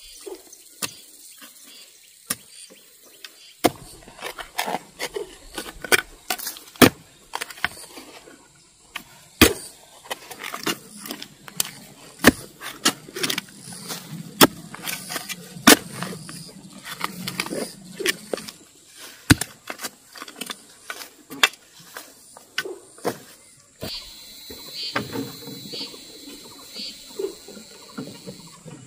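A long run of irregular sharp cracks and knocks, some loud, starting a few seconds in. Brief high chirping sounds come in near the end.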